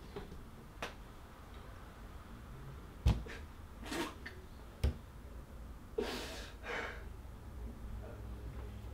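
A man's heavy, ragged breaths and a sob after shouting, with two dull thumps on a wooden tabletop about three and five seconds in as he slumps onto it.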